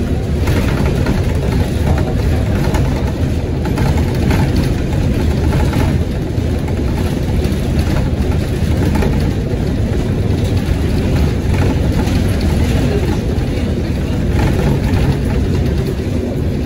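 Cabin noise of a DC Circulator 2000-series transit bus under way: the engine running steadily with road noise.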